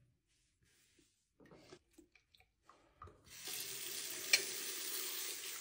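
Faint clicks of hands fitting the aerator onto a bathroom faucet spout, then about three seconds in the tap is opened and water runs steadily into the sink, with one sharp click a second later. The water flows freely now that rocks and grit have been cleared from the aerator screen that was blocking the flow.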